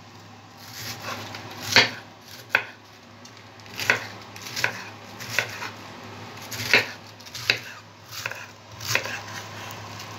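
Chef's knife shredding a raw white cabbage and striking a wooden cutting board, in sharp, slightly irregular chops about one a second.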